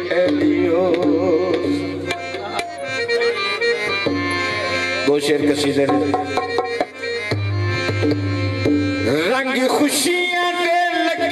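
Instrumental passage of Punjabi folk music: harmonium playing a melody in held reedy notes over tabla and dholak drumming.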